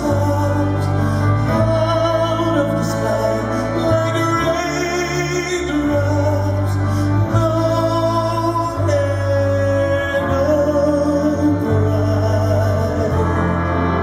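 Live male vocal group singing a slow ballad, backed by an orchestra with strings, over held bass notes that change every second or two.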